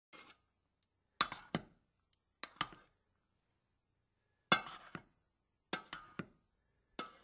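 Small stainless-steel toy pots and a metal utensil clinking against each other, in six short bursts, several of them quick double clinks.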